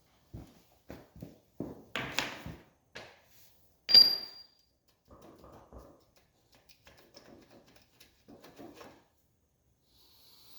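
Hammer blows on the swing arm pivot bolt of a 1984 Honda ATC250R: a quick run of knocks, then one loud metal strike about four seconds in that rings on with a high tone. Quieter scraping and rattling of metal parts follow.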